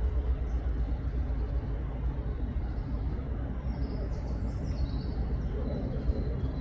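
Low, steady outdoor rumble, with a few faint high bird chirps about four to five seconds in.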